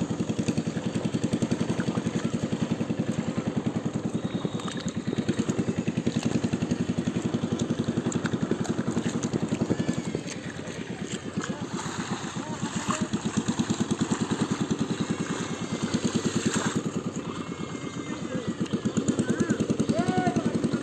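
Small engine running steadily with a fast, even chugging that swells and eases a little over time.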